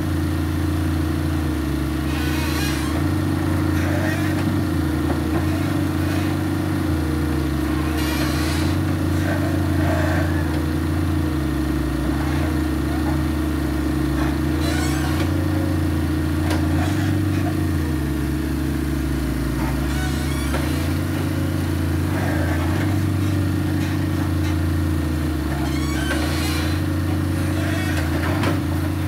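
Wheeled excavator's diesel engine running steadily under changing hydraulic load as the bucket mixes concrete, its low note dropping in and out every few seconds. A few brief hissing rushes of noise sound over it.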